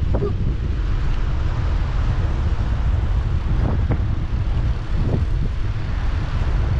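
Wind buffeting the microphone of an action camera riding along on a bicycle: a steady, loud low rumble with a hiss on top.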